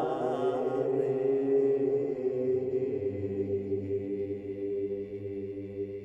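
Soundtrack music of long held droning tones; a deeper drone comes in about halfway and the music slowly fades.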